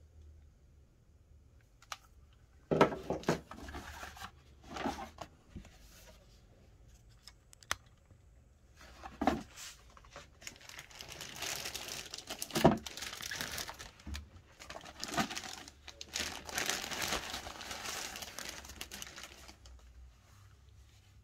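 Packaging being handled and unwrapped: bursts of crinkling and rustling with a few sharp knocks, the longest crinkling in the second half.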